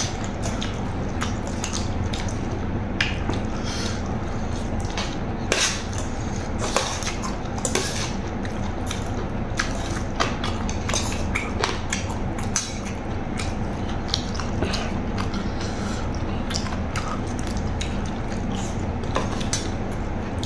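Close-up eating sounds: a metal spoon clinking and scraping on a brass tray of rice, with chewing, as many irregular sharp clicks over a steady low hum.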